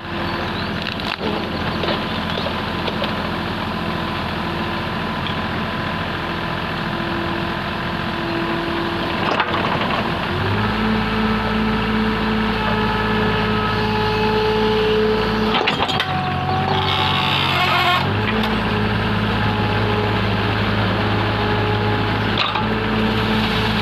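Backhoe's diesel engine running steadily, its note stepping up to a higher, stronger pitch about halfway through as the revs rise for work, with a short change in the sound about two-thirds in and a few sharp knocks.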